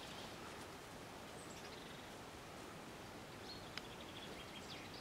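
Faint outdoor background hiss with a few distant bird chirps, mostly in the second half.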